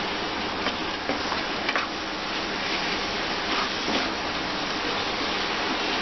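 Keema (minced meat) with yogurt sizzling in oil in a kadai while being stirred with a wooden spatula, with a few light scrapes of the spatula against the pan.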